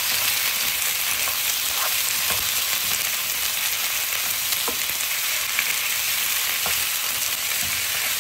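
Onion, bell pepper and pineapple chunks sizzling in olive oil in a frying pan, with a spoon stirring and now and then clicking against the pan.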